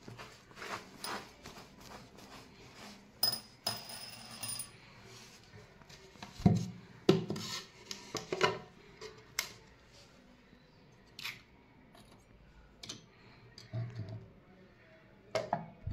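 Light handling noise as small statues and objects are moved about and set down on a shelf: scattered knocks, clicks and scrapes, with a brief metallic ringing clink a little over three seconds in.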